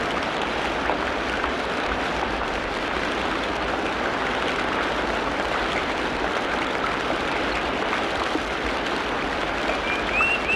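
Steady rushing water noise throughout. Near the end a bird starts a quick series of short, falling chirps.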